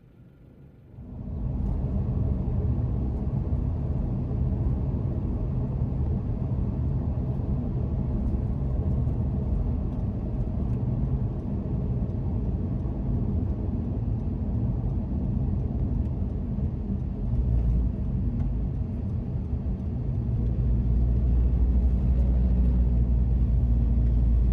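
Steady rumble of a car driving, with low road and engine noise; it starts abruptly about a second in and grows louder near the end.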